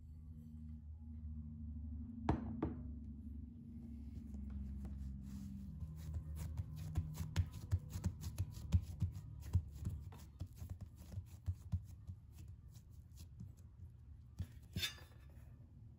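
Soft, irregular taps and knocks of hands working on a kitchen counter, busiest through the middle at about two or three a second, with a couple of sharper knocks near the start and near the end.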